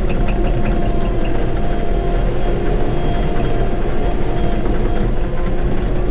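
Shantui bulldozer's diesel engine running steadily, with a few light ticks in the first second or so.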